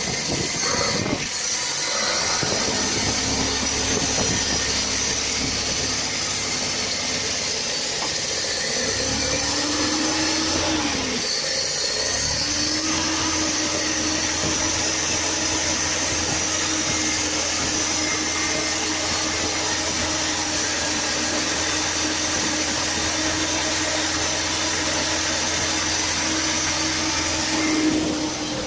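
Mitsubishi Colt T120's engine running. It is revved up and let back down about ten seconds in, then runs steadily, with a short blip of revs near the end.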